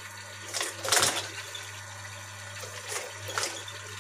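PVC tarpaulin crinkling and rustling in a few short bursts, loudest about a second in, as it is handled and pushed under the foot of a sewing machine, over a steady low hum.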